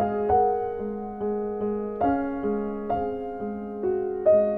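Gentle solo piano music: single struck notes, about two a second, each ringing and fading.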